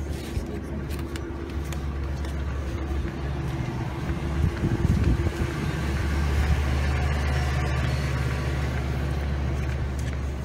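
Motor vehicle engine running in street traffic: a steady low rumble that grows louder around the middle.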